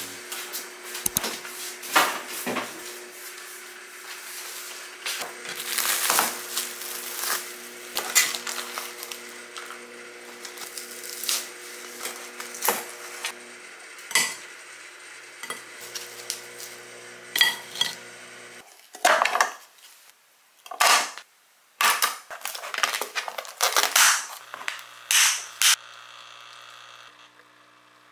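Kitchen dishes and utensils clinking and knocking during food preparation, followed by several louder scraping or swishing strokes. Under the first two-thirds there is a steady low hum that cuts off abruptly.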